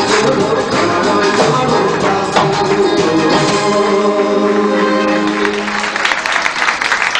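A small live band plays, with a man singing into a microphone over electric guitar and hand drums, and the song ends on held notes; about six seconds in, the audience breaks into applause.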